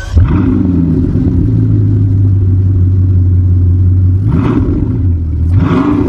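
Bugatti Chiron Super Sport's quad-turbo 8.0-litre W16 engine running loud under way, with a steady deep note. The pitch sweeps up briefly twice near the end.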